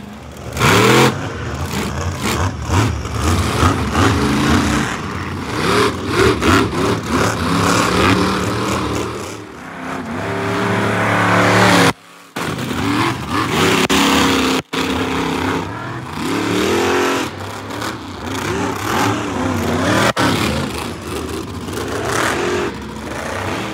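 Monster truck engines revving hard, the pitch rising and falling again and again. The sound drops out sharply twice, around the middle.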